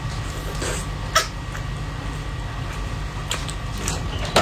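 Close-up eating sounds of a whole raw marinated shrimp being sucked and bitten: wet mouth sounds with a few sharp clicks of shell, a loud one about a second in and another near the end, over a steady low hum.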